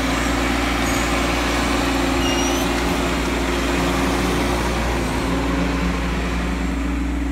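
Bobcat E10 mini excavator's diesel engine running steadily while the machine digs a trench.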